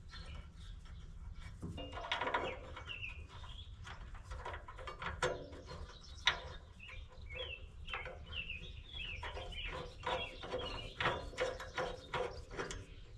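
Irregular metal clicks and clinks as bolts are started by hand into a bar on a combine's rotor, with small birds chirping in the background over a steady low hum.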